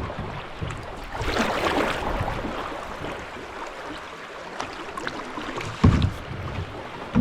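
River water rushing and splashing around a kayak, with a louder swell of splashing from about one to two and a half seconds in and a single dull thump near the end.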